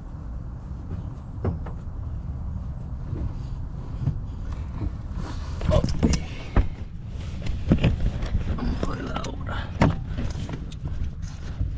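Irregular clicks, knocks and handling noises of hands working at the brake pedal switch under a car's dashboard, denser from about halfway through, over a steady low rumble.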